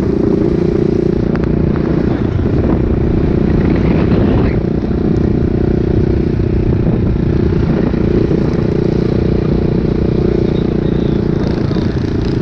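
A mini bike's small engine running hard close by, its pitch staying fairly steady, with wind rumble on the microphone.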